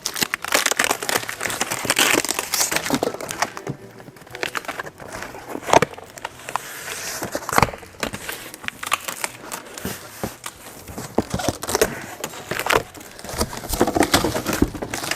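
Packaging being torn open and handled: irregular rustling, crinkling and tearing, with scattered sharp clicks and knocks.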